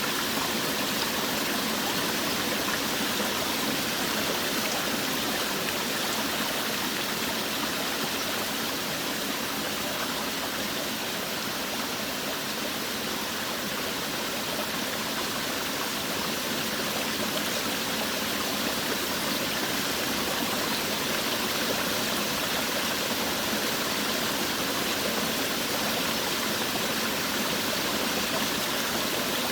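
Forest waterfall: water falling and rushing as a steady, even wash of sound.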